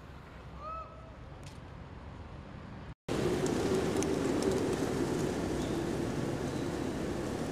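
Outdoor ambience with no music. A faint steady background with a short chirp under a second in, then, after a brief dropout about three seconds in, a louder steady rushing noise.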